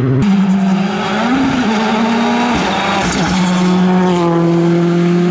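R5 rally cars' turbocharged 1.6-litre four-cylinder engines run hard on a stage. The engine note rises and dips a few times, then holds at high, steady revs as a car passes close.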